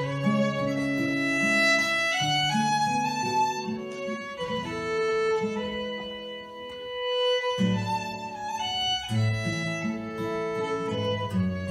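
Scottish traditional fiddle tune played live on fiddle, with acoustic guitar strumming chords underneath. The low accompaniment drops out for a moment about seven seconds in, leaving the fiddle melody alone, then comes back in.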